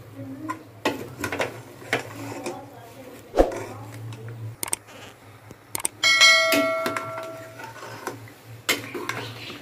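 Steel ladle stirring chunky food in an aluminium pressure cooker: scrapes and knocks of metal on metal. About six seconds in, the ladle strikes the pot sharply and it rings like a bell for over a second.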